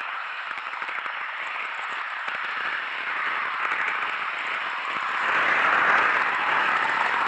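N-gauge KATO E257 model train running along the track, picked up by a camera riding on it: a steady crackly hiss of wheels on rails, growing louder about five seconds in as the train goes into a tunnel.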